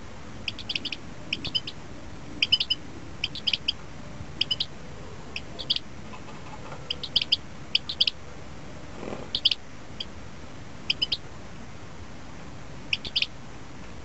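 A bird chirping repeatedly: short, high chirps in quick clusters of two to four, about one cluster a second, over a steady background hiss.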